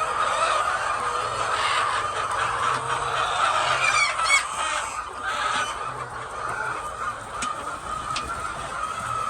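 A large flock of laying hens clucking together in a dense, continuous chorus, with a few sharper calls about four seconds in.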